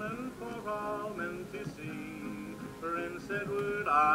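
A song with a man singing over plucked and strummed guitar, played from a 45 rpm record on a portable record player.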